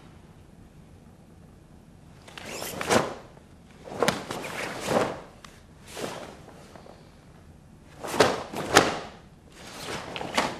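Karate techniques of the Shito-ryu kata Nipaipo being performed: about seven short swishing rushes of uniform cloth and moving feet, two of them ending in a sharp crack.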